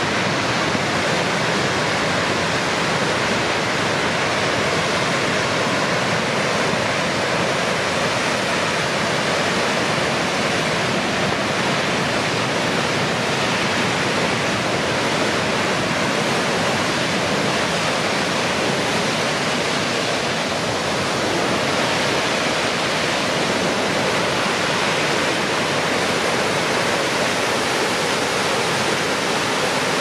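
Cave Falls, a wide, low waterfall on the Fall River, rushing steadily: an even, unbroken noise of falling water.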